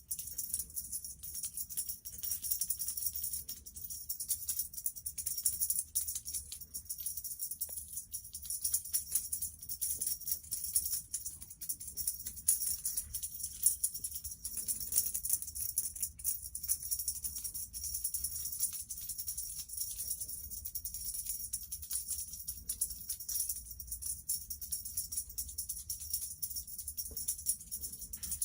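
Background music with a constant high jingling percussion line throughout.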